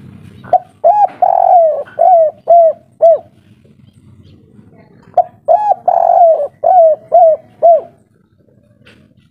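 Spotted dove cooing its 'kuk 3' song twice. Each phrase is two short notes, a longer drawn-out coo, then three short clipped 'kuk' notes, with a pause of about two seconds between phrases.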